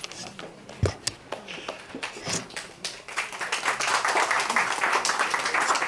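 Audience applause: a few scattered claps at first, building to steady clapping from about three seconds in. There is a low thump about a second in.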